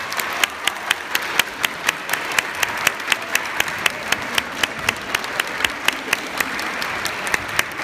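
Audience applauding in a hall. One clapper close by stands out with quick, evenly spaced claps, about five a second, over the wash of the crowd.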